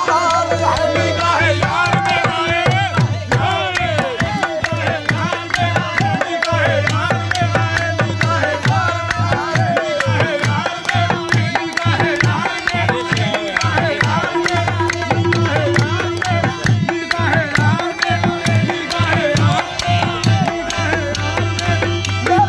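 Qawwali-style devotional music: tabla keeps a steady beat under a sliding, ornamented melody line and a sustained low drone.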